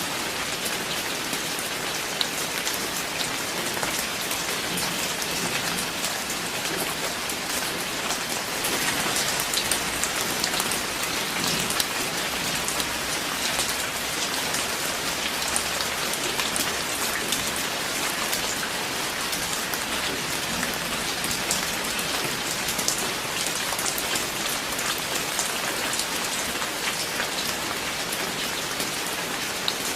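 Steady rain falling, a dense patter of individual drops hitting a surface.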